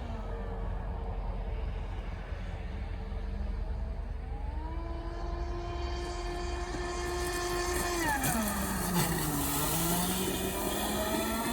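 Whine of an RC speedboat's Scorpion 5035 500 kV brushless motor on 12S, rising and falling in pitch as the boat runs. The pitch climbs about four seconds in, holds, drops sharply about eight seconds in, and climbs again near the end.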